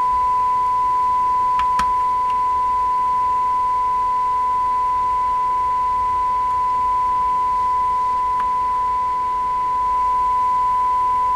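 Steady test tone from the Connex 3300FHP 10-meter radio's speaker as it receives a tone-modulated signal from a signal generator during a receive check, with a few faint clicks about two seconds in and again near the end.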